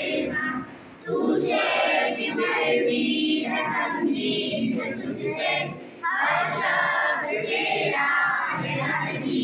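A group of people singing a song together, with short pauses about a second in and about six seconds in.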